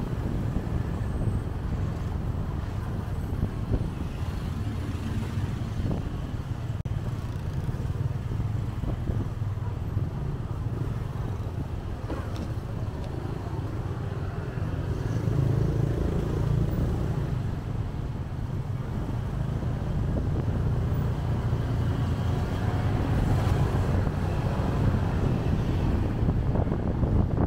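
Motorcycle being ridden through city traffic: a steady low engine rumble with road noise, getting louder about halfway through.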